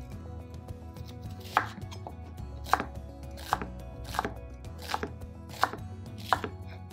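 Chef's knife chopping a red onion on a wooden cutting board: about seven separate cuts, roughly one every 0.7 seconds, starting about a second and a half in.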